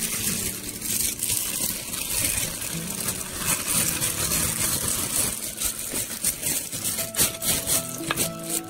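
Thin plastic takeaway bag crinkling and rustling as fried fritters are tipped out of it onto a plate, a dense stream of small crackles. A few sustained musical notes come in near the end.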